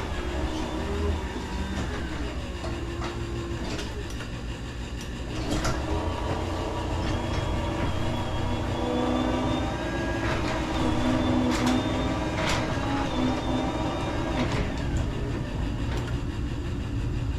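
A sectional garage door rolling along its tracks: a steady rumble with roller clatter, scattered clicks and thin squeals, getting louder about five seconds in.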